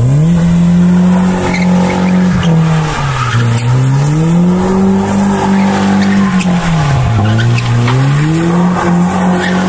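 BMW E36 316 Compact's 1.9-litre petrol four-cylinder held at high revs while the car slides in circles, tyres squealing on tarmac. The revs drop sharply twice, about three and seven seconds in, and climb back up each time.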